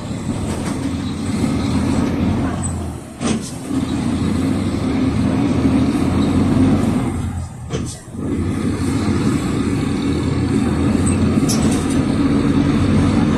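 Cummins ISF3.8 four-cylinder diesel of a PAZ 4234 bus, heard from inside the cabin, pulling away under load. Its note breaks off briefly twice, about three and eight seconds in, at the manual gear changes.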